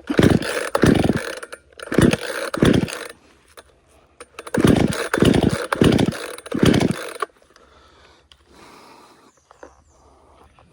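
Chainsaw engine in two spells of short, loud bursts, about four in each, with a pause of about a second and a half between the spells. It goes quiet a little past the middle.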